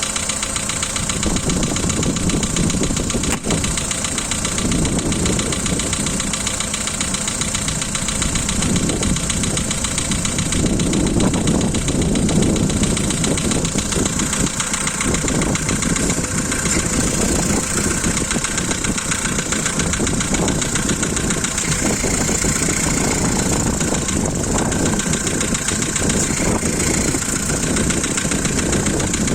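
Volkswagen Polo's 1.6-litre CFNA four-cylinder engine idling after a cold start with a steady rapid tapping knock, which the mechanic puts down to one hydraulic lifter slapping hard and a couple more slightly.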